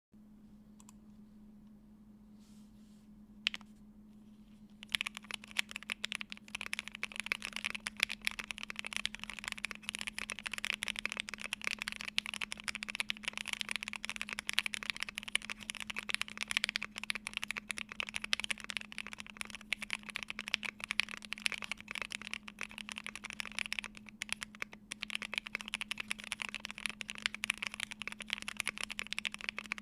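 Typing on a Polaris mechanical keyboard with lubed and filmed Banana Split linear switches, a polycarbonate plate and ePBT keycaps. One keystroke comes about three and a half seconds in, then continuous fast typing from about five seconds on.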